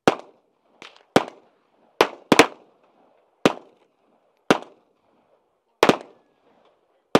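Handgun fired at a steady pace: about nine sharp shots, roughly a second apart, including a quick double near the middle, each with a short echo.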